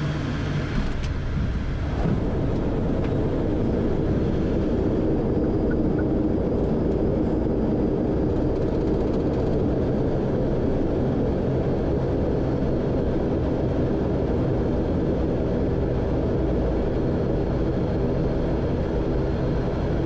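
ATR turboprop's engines and propellers heard from inside the cockpit as the aircraft rolls on the ground: a steady drone with several held tones, slightly louder from about two seconds in.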